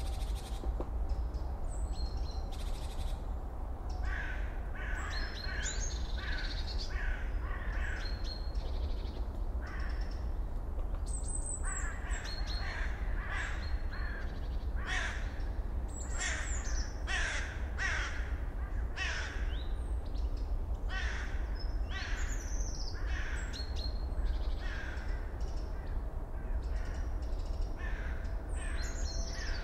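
Crows cawing, a run of harsh calls about one a second, over a steady low background rumble, with a few thin high chirps from small birds.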